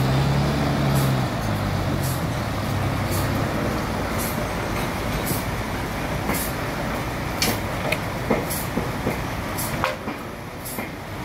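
Toyota forklift's engine running as it drives off with a sawn slab on its forks. The engine hum drops in pitch about a second in, with a light tick about once a second and a few sharp knocks and rattles in the later half.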